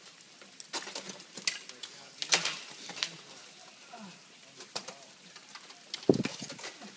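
Ice axe picks and crampon points striking frozen waterfall ice in irregular sharp clicks and taps. The loudest is a heavier, lower thump about six seconds in.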